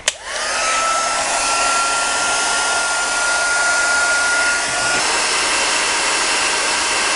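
Small handheld hot-air gun switched on with a click, its fan whining up to speed within the first second and then blowing steadily. It is heating a circuit board to desolder a USB jack.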